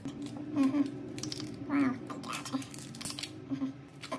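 Crunching and crackling as the crusted, broken housing of a destroyed smartphone is picked and pried apart by hand, in a string of short irregular cracks and scrapes over a steady low hum.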